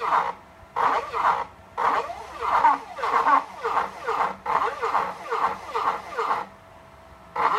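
Small stepper motors salvaged from CD-ROM drives, driving a homemade Arduino pen plotter: a whine that slides up and down in pitch as the axes speed up and slow down. It comes in a string of moves with short pauses between them, and a longer pause near the end before one more short move.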